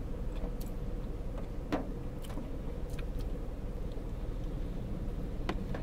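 Steady low rumble and hum inside a parked car's cabin, with a few scattered light ticks.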